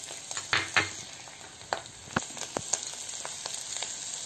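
Hot oil sizzling in a pan as a green chilli paste tempering with mustard seeds, curry leaves and spices fries, with several sharp pops and crackles in the first three seconds.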